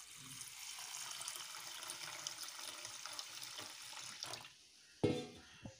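Water poured in a steady stream from a glass into a plate of raw rice and split moong dal, splashing onto the grains and stopping about four and a half seconds in. A short knock follows near the end.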